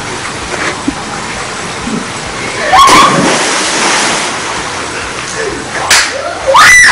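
A person thrown into a swimming pool lands with a big splash and a shout about three seconds in, over a steady rush of running water. Near the end comes a loud rising scream.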